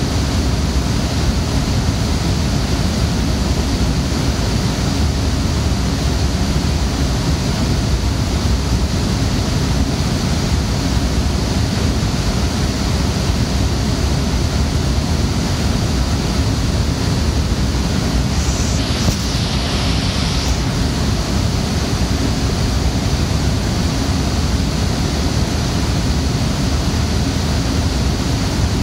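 Very loud, steady rushing noise of data-centre server cooling fans and air handling. A brief extra hiss joins in about two-thirds of the way through.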